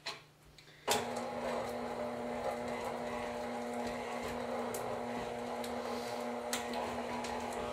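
A click, then about a second in a stand mixer switches on and runs steadily at medium speed, its beater creaming butter and cream cheese for frosting.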